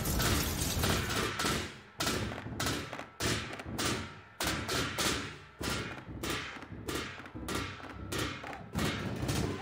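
A rapid, uneven series of sharp bangs, about two a second, each dying away quickly.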